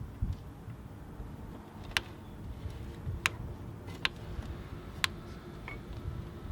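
Four sharp clicks about a second apart, over a low rumble.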